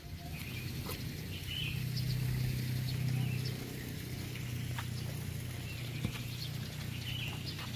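Birds chirping briefly a few times over a low hum that swells around two to three seconds in and then eases, with a few scattered footsteps.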